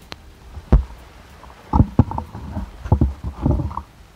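Irregular low thumps and rumble of handling noise on the camera microphone as it is moved down to the waterline, with water sloshing against shoreline rocks.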